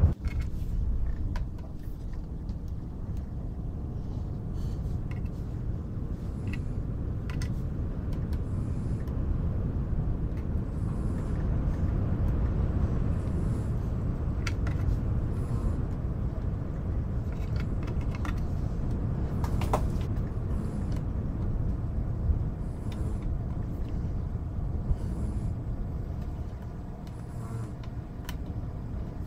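A steady low rumbling bed of wind and white noise, with scattered light clicks and taps of cardboard jigsaw puzzle pieces being sorted.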